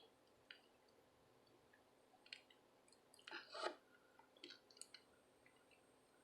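Faint, scattered small clicks and crackles of desoldering work on a circuit board, with a louder crackling cluster about three and a half seconds in.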